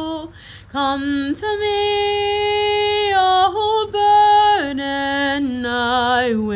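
A woman singing a slow devotional melody alone, with no instruments, holding long notes with vibrato and stepping down in pitch near the end.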